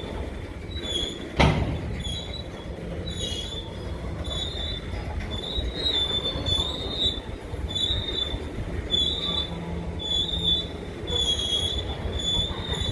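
Norfolk Southern freight train cars rolling past with a steady low rumble, wheel flanges squealing in short, repeated high-pitched squeals. One loud bang about a second and a half in.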